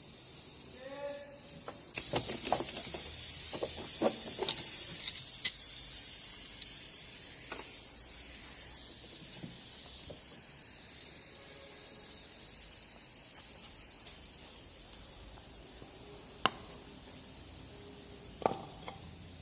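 A hiss that starts suddenly about two seconds in and slowly fades, with scattered sharp clicks and knocks.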